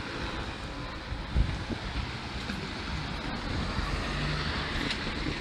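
Wind buffeting the microphone, a steady rushing noise with irregular low gusts.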